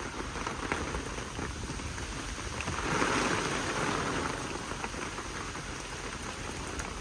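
Heavy storm rain falling steadily, pattering on the surfaces around, swelling louder for a second or so about three seconds in.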